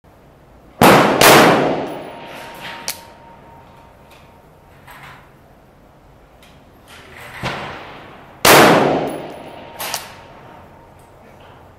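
Rifle shots from an AR-style rifle: two loud shots in quick succession about a second in, another pair around seven and a half and eight and a half seconds, and fainter shots in between. A thin ringing tone hangs on for a couple of seconds after the second shot.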